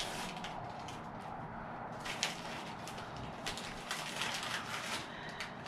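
Gift wrapping paper crinkling and tearing as a present is unwrapped, in short crackly bursts, the strongest about two seconds in and again around four seconds.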